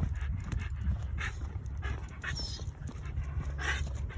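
A dog panting, with a few breathy puffs about a second apart over a steady low rumble.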